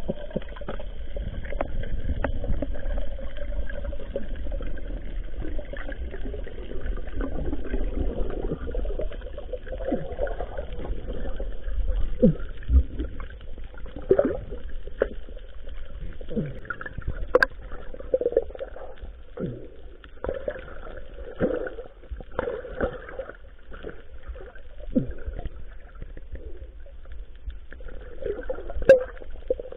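Muffled underwater sound heard through a waterproof camera housing: a low rumble of moving water, then scattered short knocks and clicks through the second half.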